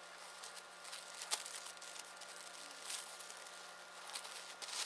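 Tissue-paper sewing pattern and fabric rustling softly as they are folded into a pleat by hand, with a sharp tick about a second in.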